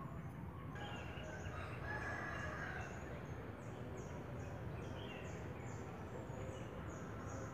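Faint outdoor bird calls: a longer call about two seconds in, and short high chirps repeating about twice a second, over low background rumble.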